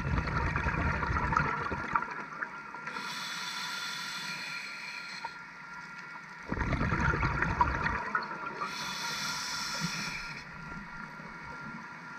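A scuba diver breathing through a regulator, heard underwater. It goes twice: a rumbling gurgle of exhaled bubbles, then a steady hiss of inhalation through the demand valve.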